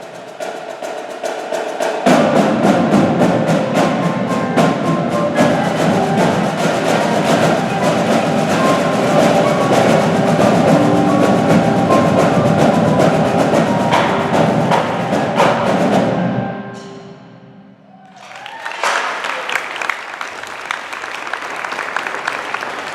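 Combined percussion ensemble of drums with marimbas, xylophone and vibes playing a fast triple-accent exercise in 12/8 time. The playing stops abruptly about three-quarters of the way through, and audience applause follows.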